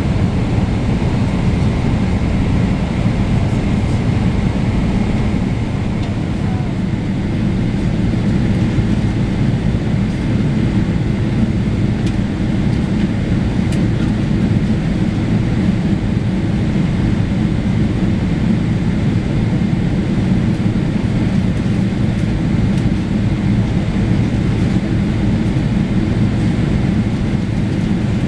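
Steady low rumble of airliner jet engines as big jets taxi and roll along the runway.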